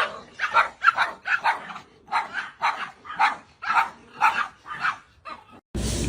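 A dog barking over and over in short, quick barks, about two or three a second. The barking stops abruptly near the end and a steady noise takes over.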